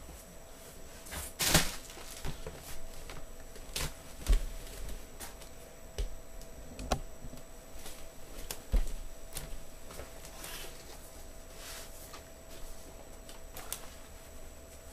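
Cardboard keyboard box and its packaging being handled and opened: irregular clicks, knocks and rustles, the loudest rustle about one and a half seconds in.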